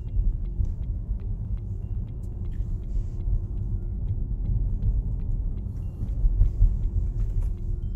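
Low, steady rumble of road and tyre noise heard inside the cabin of an electric car, a Tesla, driving slowly along a town street.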